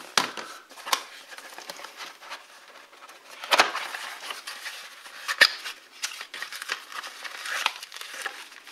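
Cardboard packaging inserts being handled and pulled out of a tablet box: irregular rustling and scraping with sharp taps and clicks, the loudest about three and a half and five and a half seconds in.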